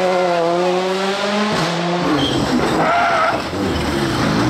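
Rally car engines at high revs through tarmac corners: one car's engine note held steady, then about two seconds in a second car takes over. About three seconds in there is a brief tyre squeal.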